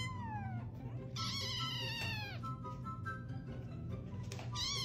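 Kittens meowing in turn, high-pitched calls that fall in pitch: a short one at the start, a longer one about a second in, and another near the end.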